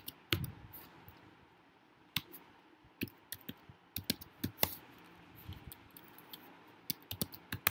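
Typing on a computer keyboard: irregular keystroke clicks, a few to several a second, with short pauses between bursts.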